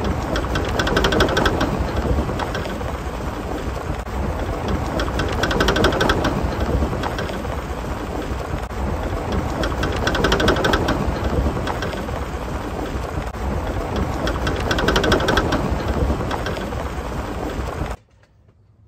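Rattling knock from the front suspension of a 2014 Chevrolet Silverado, coming in bursts of rapid clicks about every four to five seconds over a steady low rumble, and cutting off suddenly near the end. It is the noise of a broken sway bar link bolt.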